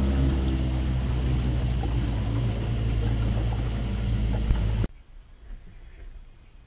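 Small boat's outboard motor running steadily, then cutting off suddenly about five seconds in.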